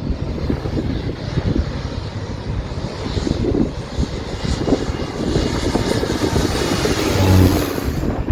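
Airplane passing low overhead, its engine noise swelling to a peak shortly before the end and then falling away.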